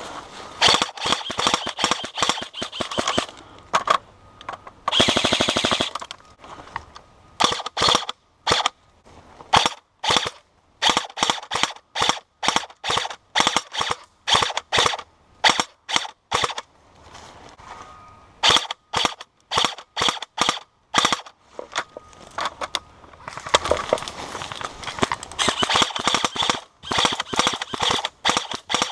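Airsoft guns firing in a running exchange: single shots and short strings of shots, with one rapid full-auto burst about five seconds in and heavier firing again near the end.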